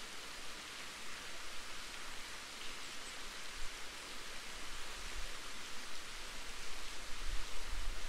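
Awosting Falls waterfall pouring steadily: an even, unbroken rush of falling water, with a low rumble that swells near the end.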